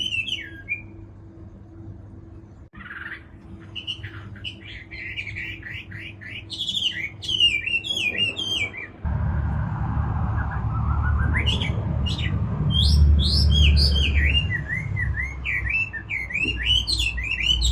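Chinese hwamei singing: loud, varied whistled phrases of rising and falling notes, repeated in quick runs. A low rumble joins about halfway through.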